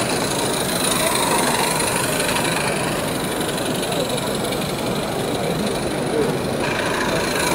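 Indistinct chatter of many voices in a busy exhibition hall, mixed with the steady running of model garden-railway locomotives circling the layout.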